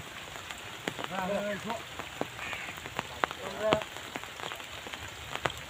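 Rain falling, with many sharp drops ticking close by. Two short pitched calls cut through it, about a second in and again near four seconds.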